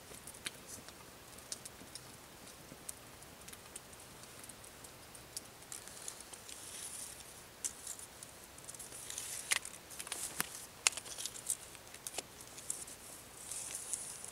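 Faint rustling in dry forest-floor litter with scattered small clicks and ticks as a tape measure is handled and drawn out along a log; the clicks get busier in the second half, with a couple of sharper ones.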